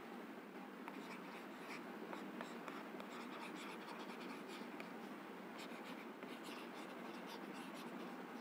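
Stylus nib scratching across a writing tablet in quick short strokes as handwriting is written, faint over a steady background hiss.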